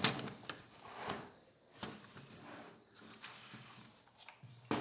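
Handling noise: a few light clicks, knocks and rustles as small objects are picked up and set down.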